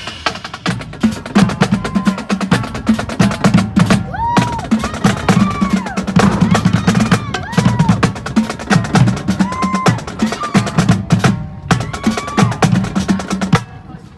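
Marching band drumline playing a fast cadence: crisp snare and rim clicks over a steady low drum pulse.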